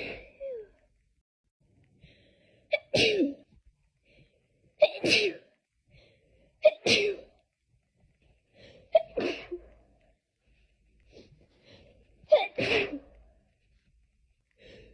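A person sneezing over and over in a sneezing fit, one voiced sneeze about every two seconds, each a short lead-in breath followed by a sharp burst.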